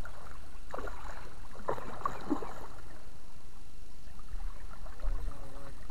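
Hooked fish splashing at the water's surface as it is played in on a feeder rod, a few short splashes in the first couple of seconds over a steady low rumble.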